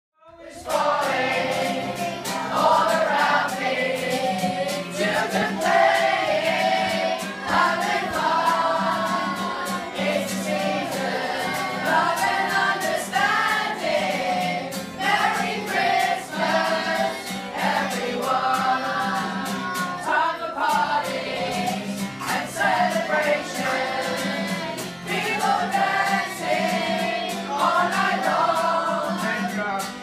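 A group of young people singing a song together, accompanied by a strummed acoustic guitar. The music starts about half a second in.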